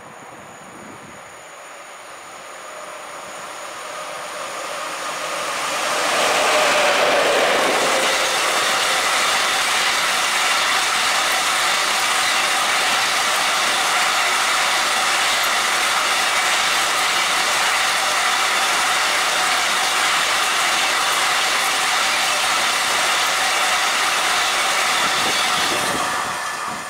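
Electric-hauled freight train passing through a station at speed: it grows louder as it approaches, the locomotive goes by about six seconds in, then a long string of wagons rolls past with steady wheel clatter on the rails. The sound begins to fall away near the end.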